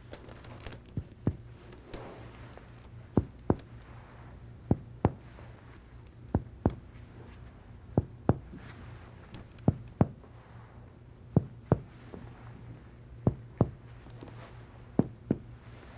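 Finger percussion of a man's bare anterior chest: sharp taps in pairs about a third of a second apart, two strikes at each spot, a new pair every one and a half to two seconds as the examiner works down the chest comparing both sides. Over these healthy anterior lung fields the percussion notes are expected to be resonant.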